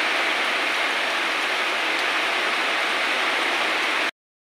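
Heavy downpour falling on plants and flooded ground, a dense, even hiss. It cuts off abruptly about four seconds in.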